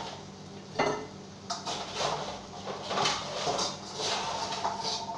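Kitchenware clatter: a utensil knocking and clinking against a stainless steel bowl and a china plate, about half a dozen separate knocks spread over a few seconds.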